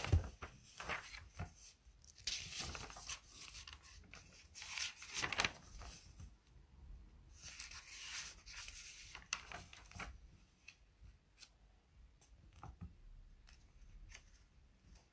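Faint scratchy rustling in three short bursts, followed by a few scattered light clicks.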